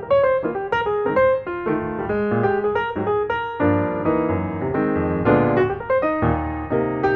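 Background instrumental music, a quick run of distinct keyboard-like notes over lower held chords.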